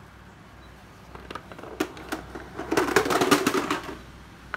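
Hard plastic clattering: power-tool battery chargers being handled and set down on a tile floor. A few separate knocks, then a burst of rattling about three seconds in that lasts about a second.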